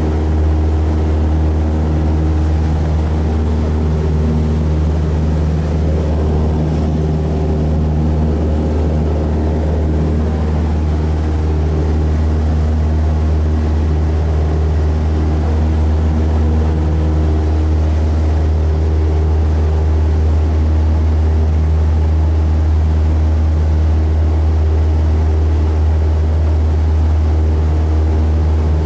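Cessna 172's piston engine and propeller running steadily at climb power, a loud, even drone heard from inside the cabin as the plane climbs out after takeoff.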